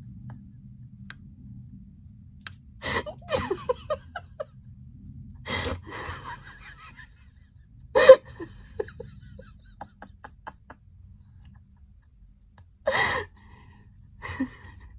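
Short bursts of laughter and gasps over a low steady background hum. The loudest burst comes about halfway through, and another comes near the end.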